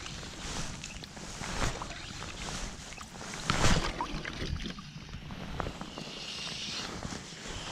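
Shallow sea water sloshing and splashing around a wading fly angler, with scattered small knocks and a louder splash about three and a half seconds in.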